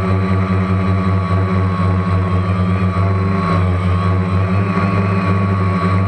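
Multirotor drone's electric motors and propellers whirring steadily, heard from the camera mounted on the drone. A low hum sits under a high whine that wavers slightly in pitch.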